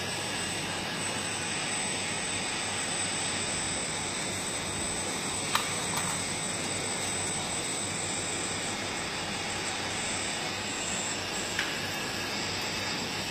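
Radio-controlled model excavators running: a steady hiss with a thin, high, constant whine, and two sharp clicks, one about five and a half seconds in and one near the end.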